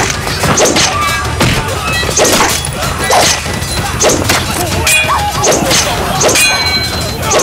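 Staged sword-fight sound effects: a fast run of hits and clashes, several with a short metallic ring of steel blades striking each other.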